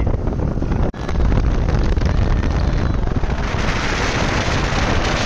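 Wind buffeting the microphone over the low rumble of a vehicle moving along a highway. A brighter rushing hiss builds about three seconds in.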